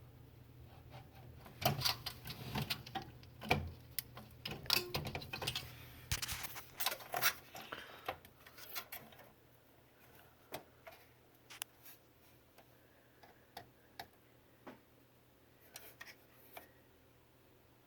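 Light clicks, knocks and scrapes of a motherboard being fitted into a metal PC case. A dense cluster of knocks comes in the first half, then single ticks about once a second.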